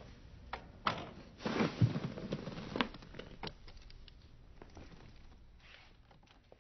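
Faint scattered clicks and a brief rustle of movement in a quiet room, fading out near the end.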